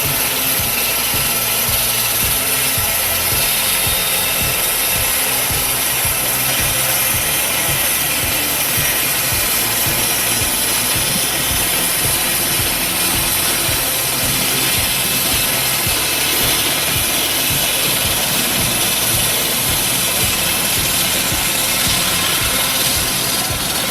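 1958 Mobilco swing saw running steadily, its engine under load as the circular blade cuts through grey box hardwood.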